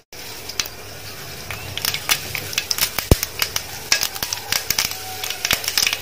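Mustard seeds sizzling in hot oil in a frying pan and starting to pop, with sharp pops coming thicker from about two seconds in as the seeds begin to splutter.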